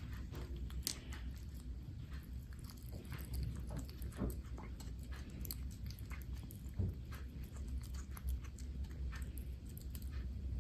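Kitten eating dry kibble and wet cat food from a steel bowl: many small, irregular crunches and chewing clicks over a steady low hum.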